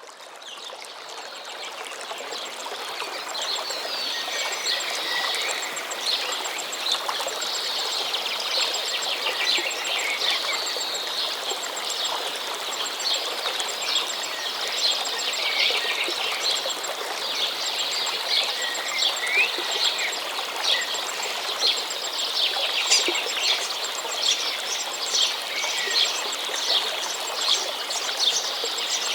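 Small birds singing and chirping over the steady rush of a flowing stream, the whole recording fading in over the first few seconds.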